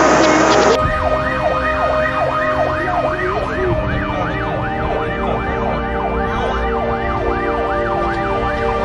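Rushing floodwater for about the first second, cut off abruptly, then an emergency vehicle siren wailing up and down fast, about two and a half sweeps a second.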